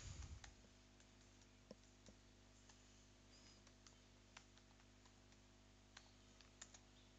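Faint computer keyboard keystrokes: scattered, irregular single clicks while a word is typed, over a faint steady hum.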